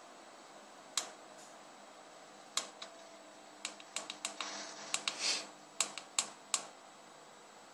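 Tactile push buttons on a microcontroller circuit board clicking as an angle value is keyed in. About a dozen short, sharp clicks at irregular spacing, some in quick succession.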